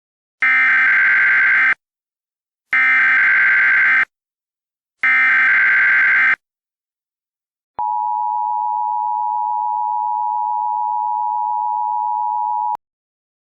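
Emergency Alert System header sounding three times: three buzzy digital data bursts of about a second and a half each, evenly spaced. Then the steady two-tone EAS attention signal (853 and 960 Hz) is held for about five seconds and cuts off. Together they mark the start of a new emergency alert message.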